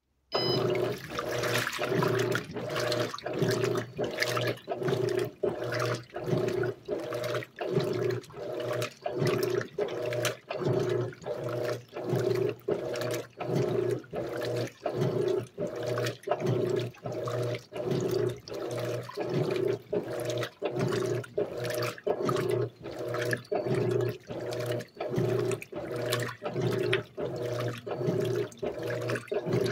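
Electrolux LAC 12 top-loading washing machine agitating in turbo mode: the agitator motor hums in rapid, evenly timed back-and-forth strokes while the water and clothes churn and slosh. It starts abruptly just after the beginning.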